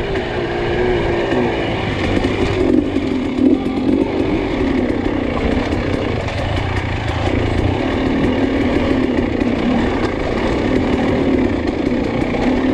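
Off-road dirt bike engine running under the rider during a race, with its pitch shifting slightly as the throttle varies.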